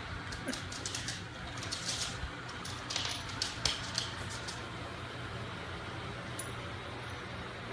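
ILIFE robot vacuum cleaner running with a steady low hum, with several short clicks and ticks in the first half, typical of debris and grit being picked up by the brushes.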